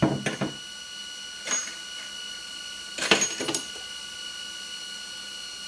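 Homemade 50 cal induction annealer cycling: its case-feed mechanism clicks and annealed brass cases drop out and clatter metallically onto the floor, at the start and again about three seconds in, with a lighter click about one and a half seconds in. Under it runs the machine's steady high-pitched hum.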